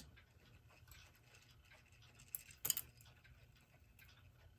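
Hammond Bichronous electric clock (late-1920s model B2) running under power: a faint steady hum with light clicking from the movement, and a sharper click about two and a half seconds in.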